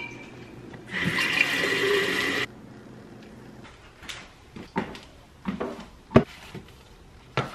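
Water running into a large tumbler for about a second and a half, starting about a second in and stopping sharply. After it come a few light knocks and handling clicks.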